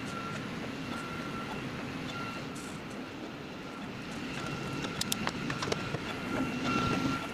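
Bambu Lab A1 Mini 3D printer printing, its stepper motors whining in short pitched tones that start and stop as the toolhead and bed move back and forth. A few sharp clicks come about five seconds in.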